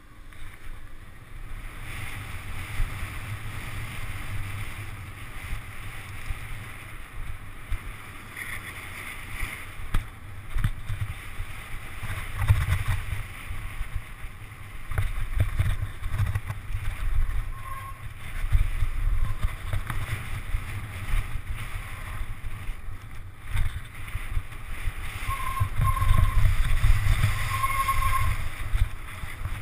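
Wind rumble on an action camera's microphone as a downhill mountain bike runs down a dirt trail, with irregular knocks and rattles from the bike over the bumps. A few short squeaks come near the end.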